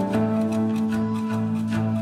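Background music: long held low notes over a steady light beat.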